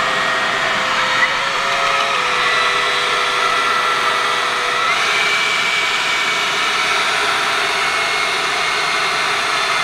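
Leaf blower running steadily at close range, a loud rush of air with a steady whine whose pitch shifts slightly about five seconds in.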